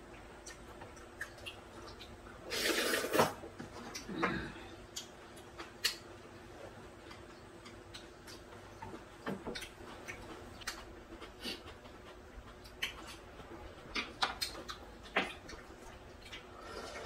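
Eating at the table: a noisy slurp of noodles about two and a half seconds in and a shorter one soon after, with chewing and scattered light clicks of chopsticks against wooden bowls and dishes.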